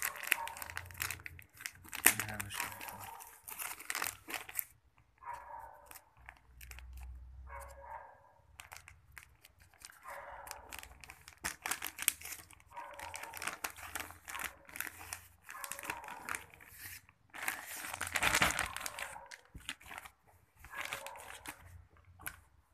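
Thin plastic packaging crinkling and tearing as hands pull a grey courier mailer and a clear zip-lock poly bag open, in irregular bursts with short pauses and a louder stretch late on.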